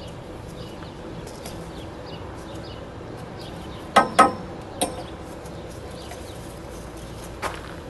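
A few sharp clicks and knocks as the replacement heat transfer valve (heater coolant valve) and its hoses are handled and fitted in the engine bay. Two come close together about four seconds in, a lighter one just after, and another near the end.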